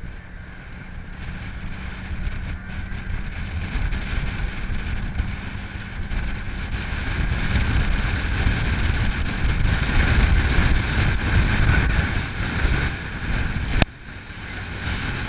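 An open dune-ride vehicle running along a sand trail, with heavy wind buffeting the microphone; the rumble grows louder as it goes. A sharp click comes near the end, and the sound drops suddenly after it.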